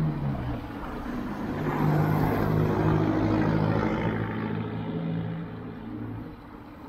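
Street traffic: a motor vehicle's engine running close by, growing louder over the first two seconds and fading away over the last two, over a haze of road noise.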